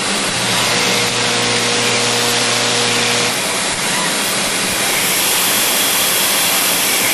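Centerless grinder cell running: a steady hiss of coolant spray and machine noise, with a steady machine hum that stops about three seconds in.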